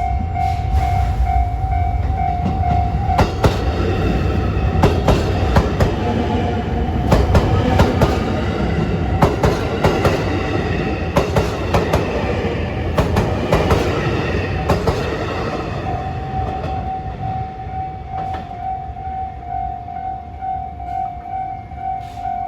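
Japanese railway level-crossing alarm ringing in a steady repeating pulse while a train runs through the crossing. The train's wheels clatter over the rail joints for about twelve seconds and cover the alarm. As the train noise fades, the alarm can be heard ringing again.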